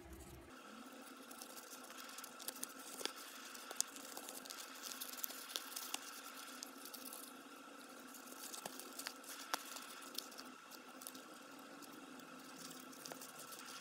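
Faint crackling and rustling of a small folded sheet of drawing paper handled between fingers as its Miura-ori creases are pressed and re-creased, with scattered sharp little clicks.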